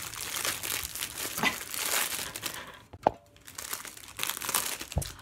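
Thin plastic cake wrapper torn open with the teeth and pulled apart by hand, crinkling and crackling, with a short lull and a sharp snap about three seconds in.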